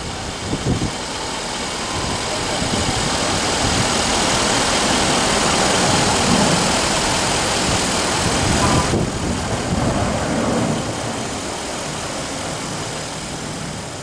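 Jet engines of a US Airways Airbus A320-family airliner at takeoff power on the climb-out, a broad steady roar that swells to its loudest midway and then fades as the aircraft climbs away.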